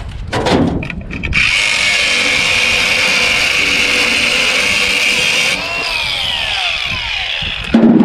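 Cordless angle grinder with a cutoff wheel cutting through a rusted truck-bed bolt for about four seconds, then the wheel spinning down with a falling whine. A loud thud comes near the end.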